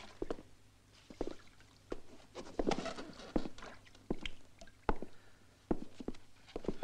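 Irregular footsteps and knocks on wooden floorboards, with water splashing and dripping into a metal basin as a wet cloth is wrung out.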